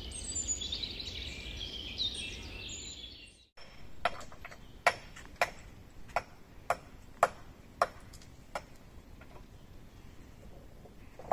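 Birds chirping, then after a sudden cut, sharp knocks of stonemasons' tools striking stone. There are about two knocks a second for some four seconds, then they grow fainter and sparser.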